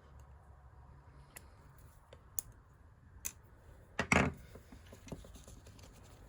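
Small sharp clicks and taps of a screwdriver working the little pins out of a watch and its strap, with a louder clatter about four seconds in.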